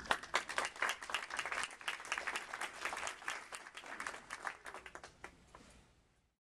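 Audience applauding, a dense patter of hand claps that fades away and stops about six seconds in.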